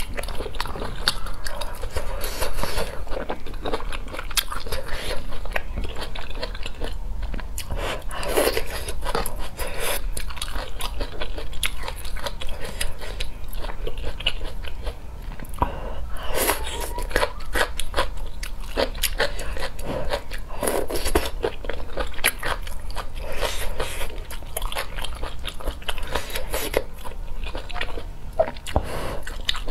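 Close-miked eating sounds: a person biting and chewing mouthfuls of spicy hot pot noodles and vegetables, crunchy and wet, with many quick sharp clicks throughout.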